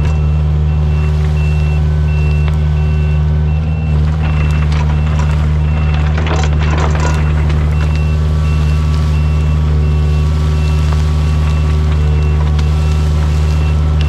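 Kubota U55-4 mini excavator's diesel engine running steadily under work, with its travel alarm beeping about twice a second. Roughly halfway through comes a crunching clatter of debris being handled.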